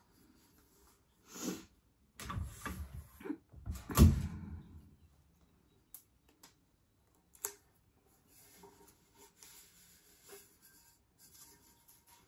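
Handling noises as sublimation paper is wrapped and taped onto a tumbler: rustling, taps and knocks, the loudest a sharp knock about four seconds in, then faint rubbing and small ticks.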